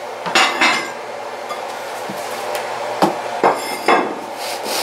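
Wooden pizza peel knocking on the counter and against a ceramic plate as a pizza is slid off the peel onto the plate. Sharp knocks and clatter: two just after the start, then three in quick succession about three to four seconds in.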